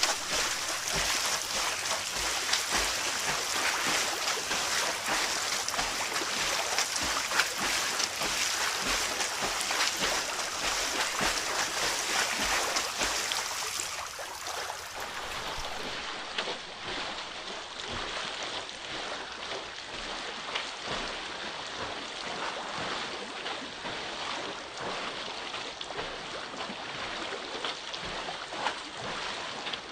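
Water running and splashing steadily, quieter from about halfway through.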